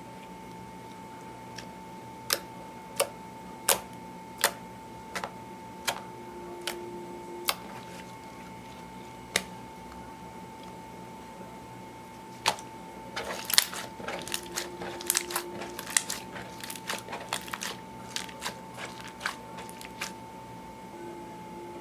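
Clear slime being pressed and worked by hand, giving sharp sticky clicks and pops. They come singly every second or so at first, then in a quick, dense run from a little past halfway, over a faint steady background tone.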